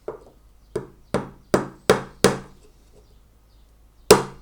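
Small hammer tapping a gimp pin into the wooden side and top bars of a beehive brood frame: a light first knock, then five quick, evenly spaced taps driving the pin home. After a pause of nearly two seconds, a louder run of taps starts near the end on the next pin.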